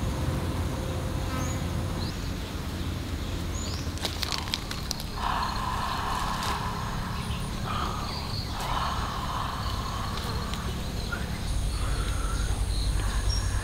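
Insects buzzing in several bouts over a steady low rumble of background noise, with two short, faint, high bird chirps about one and three seconds in.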